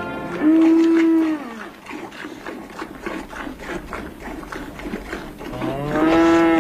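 A cow mooing twice: one held moo about half a second in and a second near the end. Under them runs a quick, even rhythm of soft squirts, like milk being hand-milked into a pail, about three a second.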